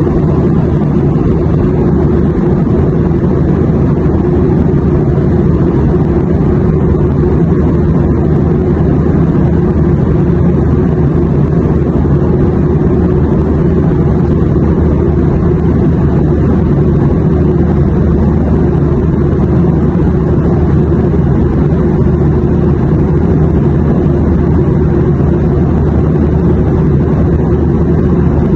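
Airliner cabin noise in flight: a steady, unchanging low rumble of engines and airflow with a faint steady hum in it.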